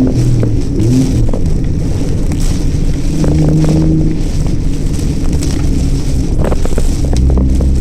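A car driving through a typhoon: its engine hum shifts in pitch under a steady rush of wind and road noise, with scattered sharp ticks.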